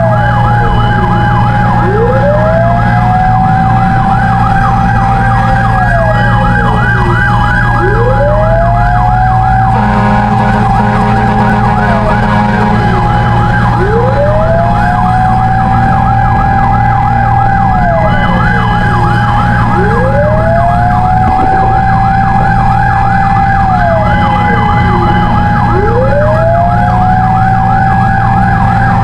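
Fire engine sirens wailing together: one slow wail rises, holds and falls about every six seconds, five times, over a fast yelping siren, with the truck's engine running underneath.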